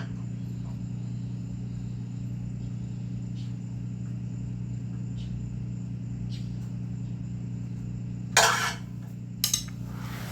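A steady low hum, with a few faint ticks. Near the end come three short, loud bursts of rustling noise.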